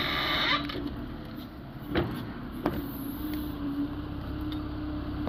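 Backhoe loader's engine running steadily while the bucket digs, a low rumble with a steady hum. There is a short rush of noise at the start and two sharp knocks about two seconds and just under three seconds in.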